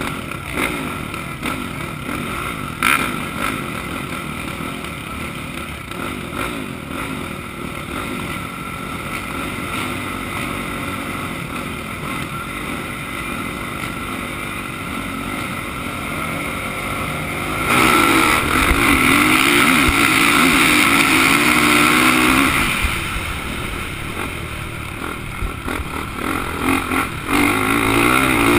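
Motocross bikes idling and blipping their throttles at the starting gate. About two-thirds of the way in, engine revs rise sharply and hold high for about five seconds, then ease back and climb again near the end.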